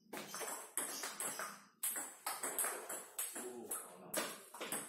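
Table tennis ball clicking off paddles and the table in a rally, a sharp tap about every half second.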